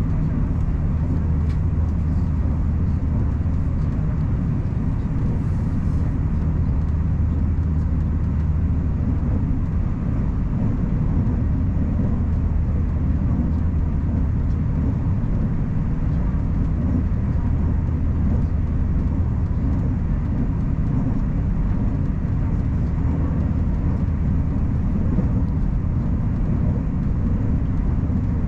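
Steady low rumble of a Puyuma tilting electric multiple-unit train running along the line, with a constant low hum under it, heard on board.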